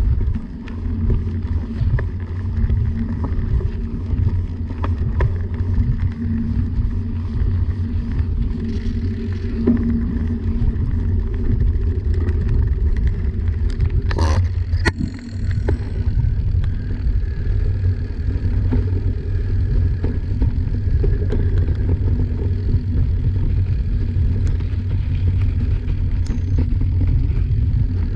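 Mountain bike ridden on a dirt trail, picked up by a camera mounted on the bike: a steady low rumble of knobby tyres rolling and wind on the microphone, with scattered clicks and rattles from bumps and a sharper knock about halfway through.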